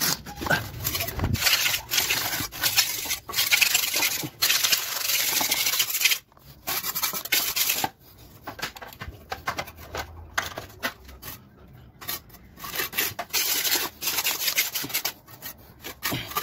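Rapid back-and-forth abrasive rubbing strokes of a surface being smoothed by hand. The strokes are dense and loud for about the first six seconds, then lighter and more spaced out.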